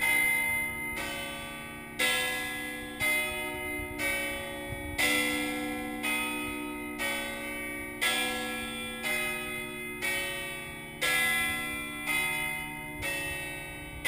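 Bronze church bells in the Leaning Tower of Pisa's belfry ringing close by, struck about once a second. Each stroke rings on with many pitches and fades into the next.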